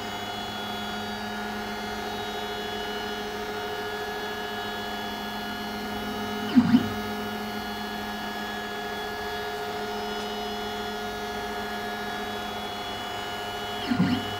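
X-Carve CNC stepper motors running continuously, a steady hum with a high whine, as the gantry traverses back and forth. About halfway through and again near the end, the pitch dips and comes back up with a short louder burst as the motors slow, reverse and speed up again. The driver current is being turned up toward thermal overload, and the motors have not tripped yet.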